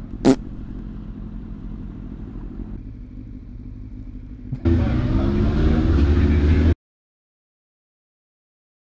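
A motorcycle's engine, the rider's Suzuki Bandit 600 inline-four, heard through a helmet camera: a short sharp sound at the start, then the engine ticking over low for a few seconds. About halfway through it revs up as the bike pulls away, with wind rush on the microphone, then cuts off abruptly into dead silence.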